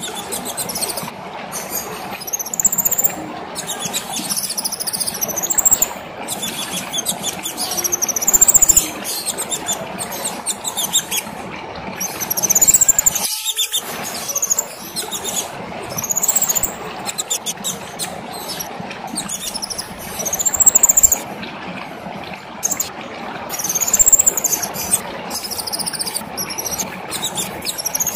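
Kemade songbird singing in loud, high, arching chirped phrases that recur every few seconds, over a steady background hiss.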